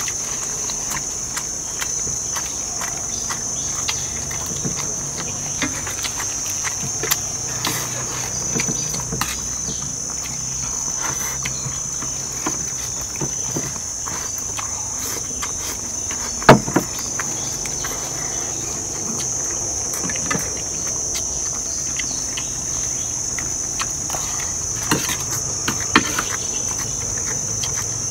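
A steady, high-pitched drone of insects, with scattered light clicks and knocks and one louder knock about sixteen seconds in.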